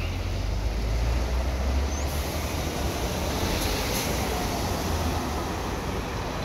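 Marcopolo G8 double-decker coach driving past: a deep engine rumble, strongest in the first two seconds, with tyre hiss on the wet road.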